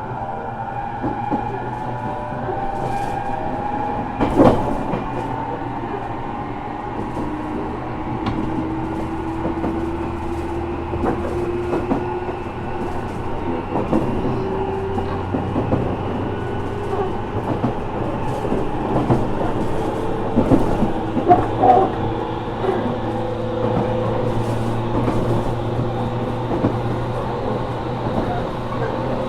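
JR Kyushu 415 series 1500-subseries electric train motor car running, with a steady rumble and motor whine slowly changing in pitch, one tone rising. Scattered clicks and knocks from the wheels and track, the loudest a sharp knock about four seconds in.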